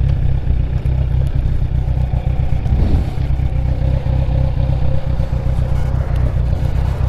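Motorcycle engine idling with a steady low rumble, loud and close to the microphone.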